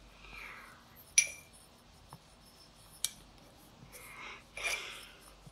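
A paintbrush stirring purple paint in a small glass bowl: soft scraping swishes, with the brush clinking sharply against the glass twice, about a second in and about three seconds in.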